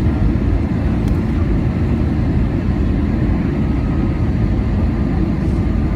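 Steady low rumble of an Airbus A320-216's CFM56 engines and rushing air, heard inside the passenger cabin.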